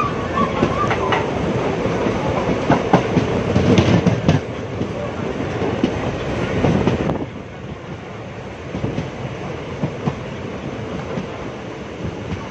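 Indian Railways passenger train coach running, heard from an open doorway: steady rolling noise with wheels clicking over rail joints. The noise is loud at first, then drops abruptly quieter about seven seconds in.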